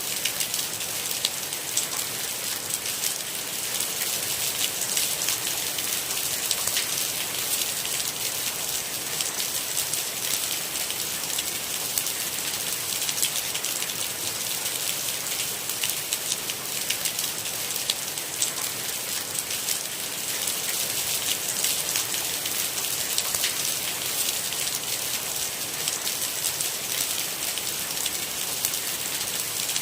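Steady rain falling: an even hiss of heavy drizzle with a dense patter of small, sharp drop ticks, no thunder.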